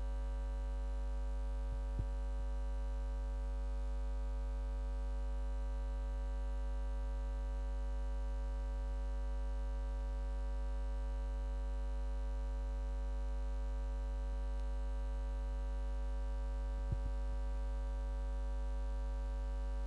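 Steady electrical mains hum from the sound system, a low buzz with many overtones, with a faint click about two seconds in and a few more near the end.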